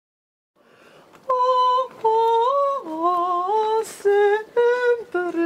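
A woman's voice humming a slow, unaccompanied melody in long held notes, starting about a second in.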